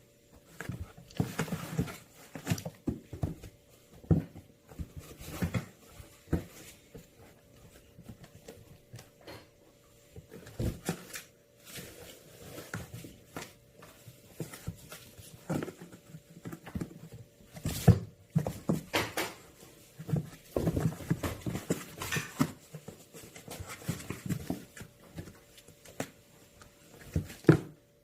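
Kittens scrabbling and batting at a box, paws poking through its holes: irregular scratching, tapping and a few louder knocks.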